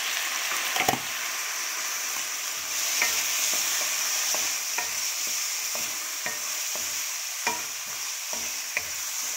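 Pork belly, chorizo and onions sizzling in a hot metal wok, just splashed with soy sauce, while a wooden spatula stirs them, scraping and knocking against the pan in irregular taps about twice a second.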